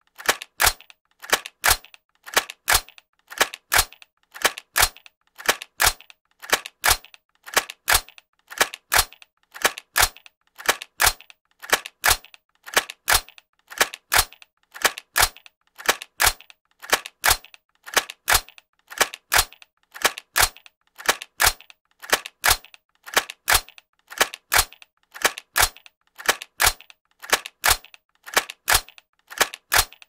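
Rifle being cocked: a short run of sharp metallic clicks from the action being worked, repeated over and over at an even pace with only brief gaps between.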